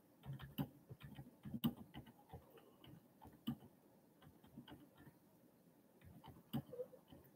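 Faint, irregular clicks of typing a message, a few taps at a time with short pauses.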